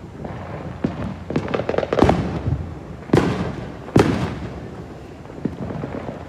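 Many fireworks going off at once: a steady scatter of bangs and crackles, with three louder blasts about two, three and four seconds in.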